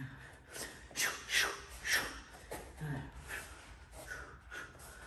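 A man's short, sharp exhalations, one hissed out with each punch as he throws boxing combinations, coming in quick pairs.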